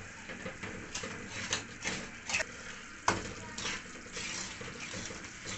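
Steel spoon scraping and clinking against a stainless steel karahi while stirring a thick mixture frying in ghee, with several sharp clinks, the loudest about three seconds in.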